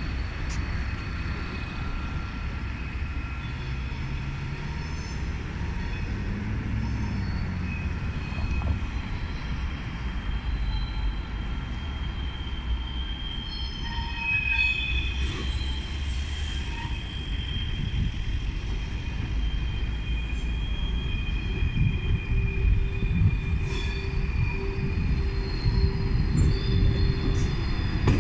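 TGV Duplex high-speed trainset approaching over the station tracks and switches, its wheels squealing in several high, steady tones that come and go. A low rumble grows louder near the end as it draws close.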